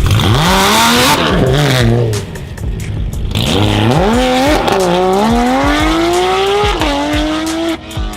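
A modified sports car engine revving hard under acceleration. Its pitch climbs, dips, then rises steadily for about three seconds before dropping sharply as a gear is changed. A rushing hiss lies over the first three seconds.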